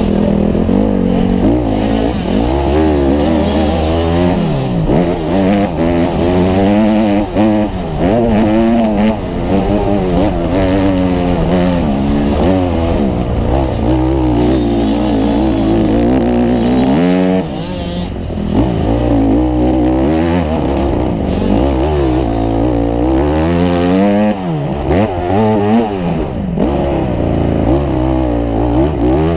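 Motocross bike engine heard up close from a camera on the bike, its revs rising and falling over and over as the rider accelerates and shifts around the dirt track. The engine note drops off briefly about two-thirds of the way through, then picks up again.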